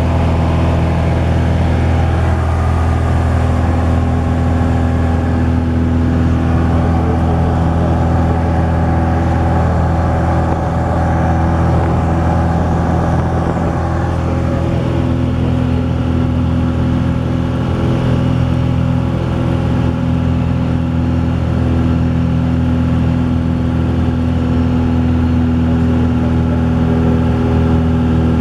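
Cessna 172's piston engine and propeller heard inside the cabin in cruise flight: a loud, steady drone with no change in pitch.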